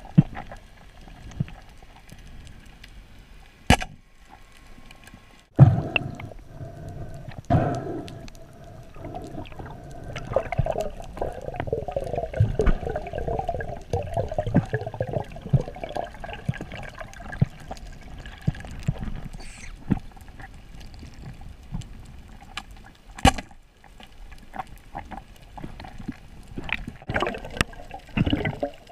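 Underwater water noise as a spearfishing diver swims over a reef: gurgling and rushing water, busiest in the first half, with a few sharp knocks.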